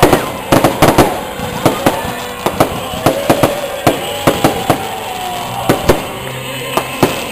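Fireworks going off: an irregular run of about two dozen sharp bangs, several in quick clusters, as aerial shells burst. Music plays underneath.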